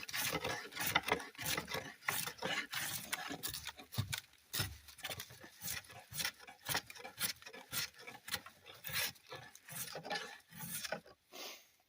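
Gränsfors Bruk drawknife shaving wood: many short scraping strokes in quick, irregular succession, stopping shortly before the end.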